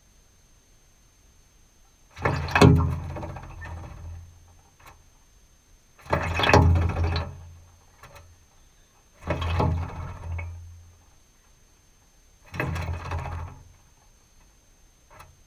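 North Island robin bathing in a shallow metal water trough: four bouts of splashing, each a second or two long and a few seconds apart.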